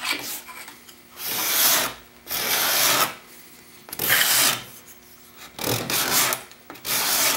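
A hand scraper made from a small Japanese saw blade with a burnished hook, taking fine shavings off a white oak board in about five push strokes of roughly half a second each, with short pauses between.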